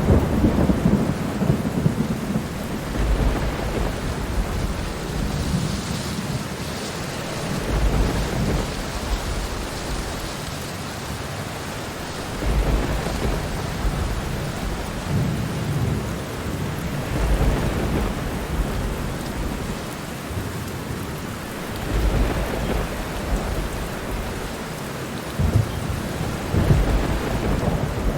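Thunderstorm: steady rain falling, with rumbles of thunder swelling and fading every few seconds.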